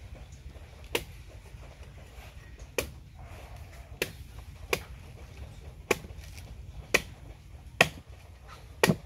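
A steel cleaver chopping into the husk of a green coconut: about eight sharp strikes, roughly one a second.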